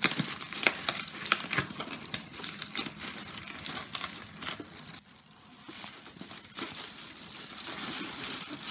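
Packaging crinkling and rustling as a gift box is unpacked by hand, with irregular crackles; it briefly goes quieter about five seconds in before the rustling resumes.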